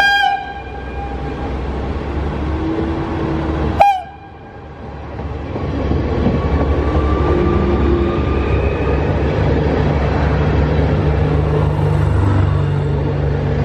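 Stadler GTW 2/6 diesel multiple unit sounding two short horn blasts about four seconds apart, the second louder. Then its diesel engine and wheels run steadily as the train pulls away and passes.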